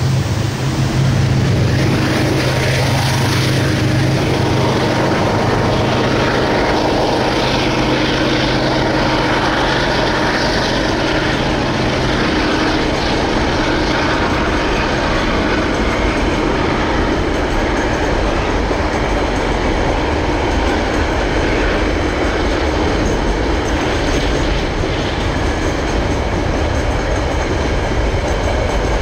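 A long freight train rolling past, its wagons rumbling and clattering steadily on the rails. A diesel locomotive's low engine drone is heard at first and fades out after about twelve seconds, leaving the wagons' rolling noise.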